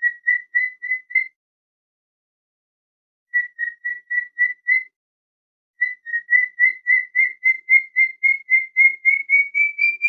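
Cockatiel chirping: runs of short, evenly spaced chirps, about three or four a second, with silent gaps between runs. The last run, starting about six seconds in, is the longest and creeps slightly up in pitch.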